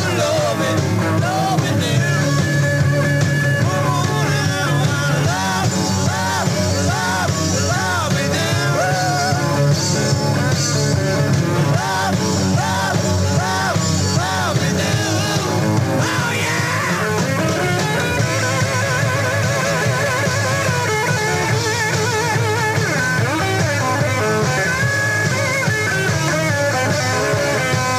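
Rock band playing live, heard from a soundboard tape: a lead electric guitar on a Gibson SG plays an instrumental break with bent notes and wavering vibrato over bass and drums.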